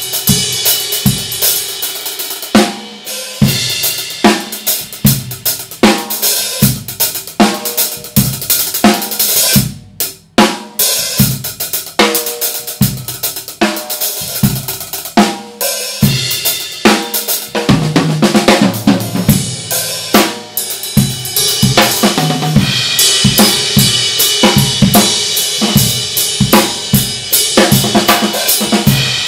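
Drum kit played in a steady groove: kick and snare with Paiste 2002 Sound Edge 14-inch hi-hats and a Paiste 2002 22-inch ride cymbal. The playing stops briefly about ten seconds in. From about two-thirds of the way through, the cymbals ring in a denser, brighter wash.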